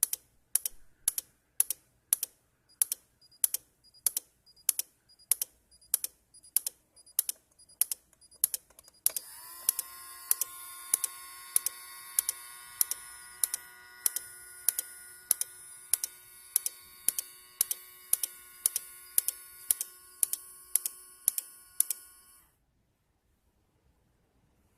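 Relay clicking on and off at a steady pace, a little under twice a second, as a temperature warning. About nine seconds in, a small DC motor starts up with a steady whine under the clicks, standing in for a sprinkler. Both cut off at once near the end: the warning clearing as the temperature drops back down.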